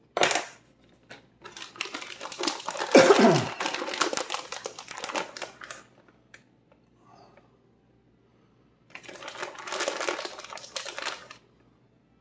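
Crinkly material being handled, crackling and rustling in three bursts: a short one at the start, a long stretch from about one to six seconds in, and another from about nine to eleven seconds in.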